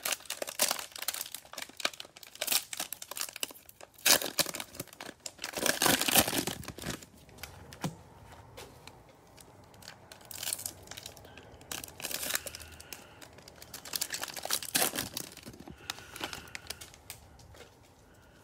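Prizm baseball cello pack wrapper being torn open and crinkled by hand, in irregular crackling bursts that are loudest around four and six seconds in and ease off near the end.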